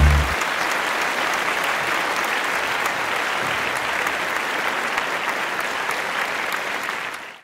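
Theatre audience applauding steadily as the last chord of a jazzy show tune cuts off; the applause fades out near the end.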